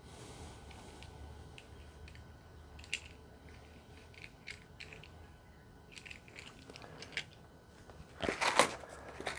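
Faint scattered clicks and ticks of small plastic toy pieces and cardboard being handled, then a louder burst of crinkling and rustling about eight seconds in as advent calendar packaging is opened.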